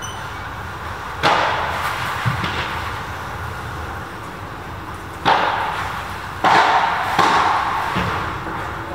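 Padel rally: the ball is struck by rackets and bounces, giving about six sharp pops at uneven intervals. The loudest come in a quick run in the second half. Each hit echoes at length under the covered court's roof.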